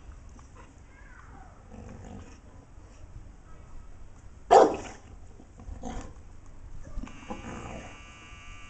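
Two dogs, a Dogue de Bordeaux and a golden retriever, play-fighting, with low growling and one short, loud bark about halfway through.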